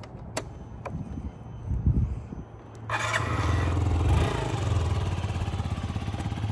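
Two clicks from the ignition key being turned, then the 2008 Yamaha C3's 49cc four-stroke engine starts about three seconds in, catching right away, and settles into a steady idle.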